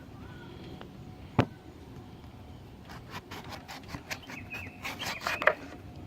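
Knife cutting into an underripe cantaloupe: one sharp knock about a second and a half in, then a quick run of crunching, scraping clicks as the blade goes through the rind.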